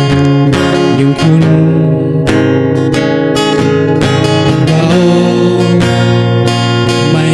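Song music led by strummed acoustic guitar, with repeated chord strokes over sustained notes.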